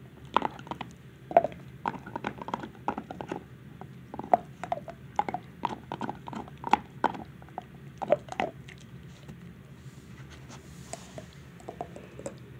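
Dog gnawing on a white chew, irregular crunching and clicking of teeth on the chew, thinning out for a few seconds near the end.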